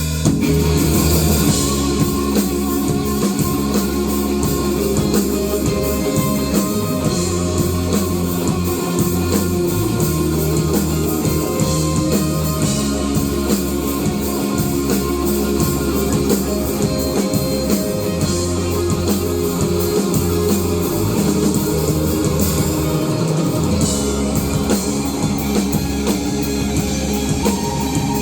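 Live rock band playing an instrumental passage: electric guitars and bass over a full drum kit, with no singing.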